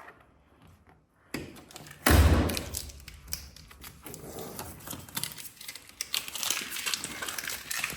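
A loud thump about two seconds in, followed by steady rustling with many small taps and clicks, like handling noise from paper or tape being worked by hand.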